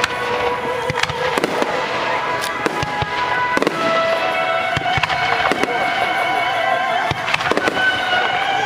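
Fireworks display: many aerial shells bursting in quick succession, with sharp bangs and crackles, over background music with held notes.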